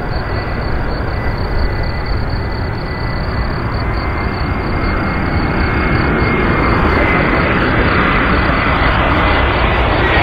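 Twin-engine Airbus A320-family airliner on final approach at low power, its engine noise growing steadily louder as it comes closer. A thin high whine rides on top and dips slightly in pitch near the end as the jet draws level.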